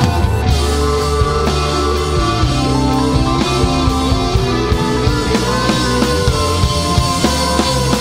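Rock band playing live, with drum kit, electric bass and electronic keyboard at a steady beat.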